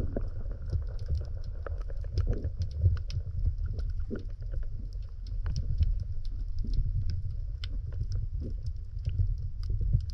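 Underwater sound picked up by a submerged camera: a dull low rumble of water movement with many small, irregular clicks and ticks scattered throughout.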